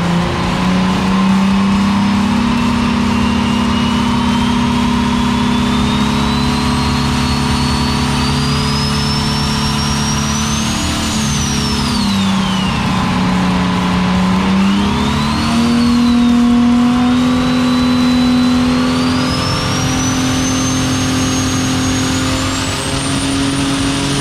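Turbocharged Ecotec V6 running under load on a chassis dyno, its pitch climbing steadily for about ten seconds, dropping off, then climbing again through a second pull near the end.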